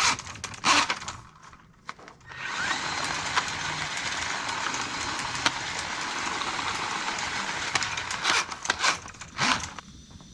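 Drain-cleaning machine running steadily for about six seconds, framed by clattering knocks of cable and tools being handled before and after.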